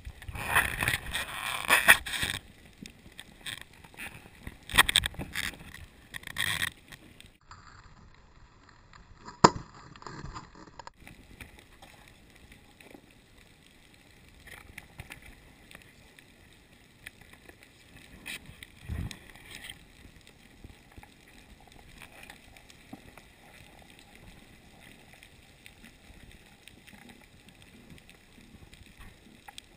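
Muffled underwater water noise picked up by a submerged camera, with several loud rushes of water or bubbles in the first seven seconds, a sharp click about nine and a half seconds in, and a dull thump near the middle, otherwise a low steady hiss.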